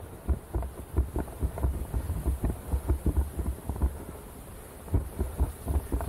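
Running footsteps: low thuds coming several times a second in a quick rhythm, easing off briefly about four seconds in.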